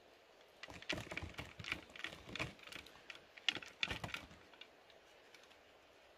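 Coconut worm larvae spilling out of a bamboo tube onto a large leaf: a quick patter of soft taps and rustles that stops at about four and a half seconds.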